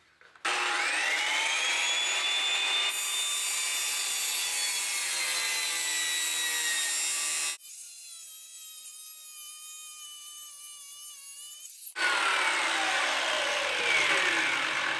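Porter-Cable circular saw with a dull blade starting up with a rising whine and cutting laminate-faced plywood, pulled backwards along the scribe line. About halfway the sound jumps abruptly to a quieter, sped-up stretch. From about twelve seconds in it is loud again, and its whine falls as the blade winds down.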